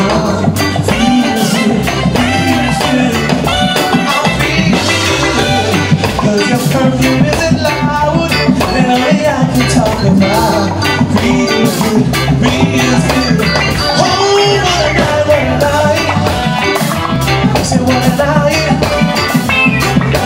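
Live reggae band playing, with drum kit, bass guitar and keyboards on a steady beat and a male singer's voice over the top.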